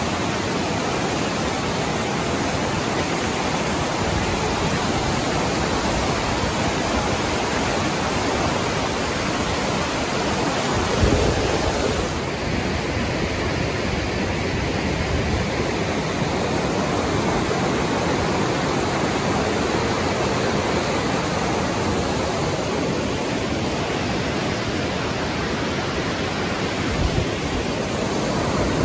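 Steady rush of a waterfall and whitewater creek. A brief low thump comes about eleven seconds in, after which the hiss is a little duller in its upper range.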